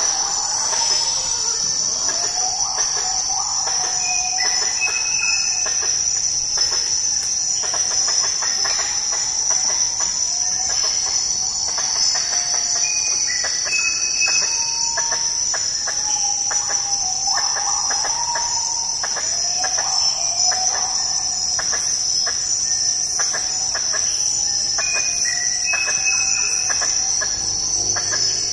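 Rainforest insects, a steady high-pitched drone, with short calls repeating every second or two.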